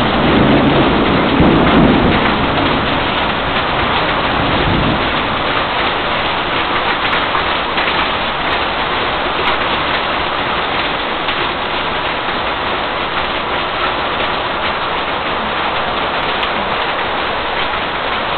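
Heavy rain pouring down steadily during a severe thunderstorm. A rumble of thunder swells twice in the first couple of seconds and dies away by about five seconds in.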